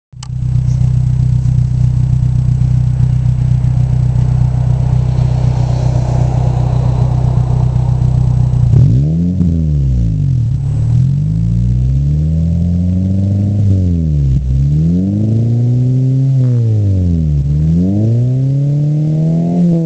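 2008 Honda Civic Si four-cylinder engine heard through a Skunk2 70mm cat-back exhaust, running at a steady pitch, then revved repeatedly from about nine seconds in. Each rev rises and falls back, roughly every couple of seconds.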